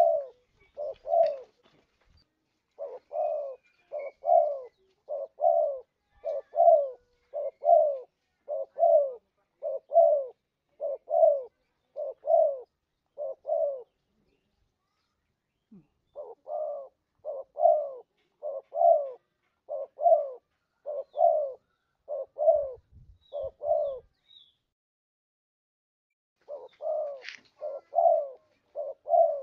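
Spotted dove cooing: short coo notes repeated evenly, about three every two seconds, in long runs broken twice by pauses of a couple of seconds.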